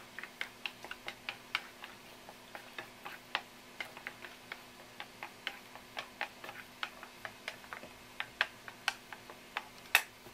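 Wooden chopsticks clicking against the side of a wooden bowl while stirring tempura batter, a steady run of sharp clicks about three a second, with one louder click near the end.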